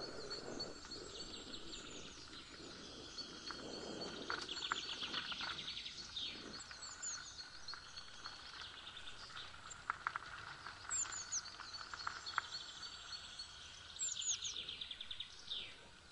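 Songbirds singing: repeated high, falling phrases and quick trills. Underneath, for about the first six seconds, the low rolling noise of mountain-bike tyres on the leaf-covered trail, which then fades.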